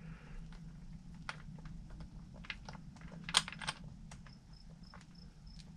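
Irregular small clicks and taps of hand tools and small screws against the plastic and metal wheel hardware of a Traxxas TRX-4 RC crawler while it is being fastened, with the loudest cluster a little past the middle.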